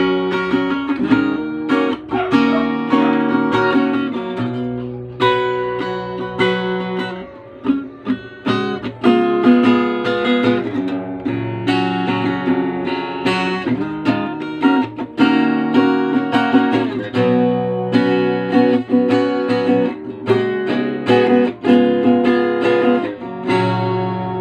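Acoustic guitar strummed in a run of chords, the chord changing every second or two, with a softer passage about a third of the way through; it is played as a test of the guitar's tone.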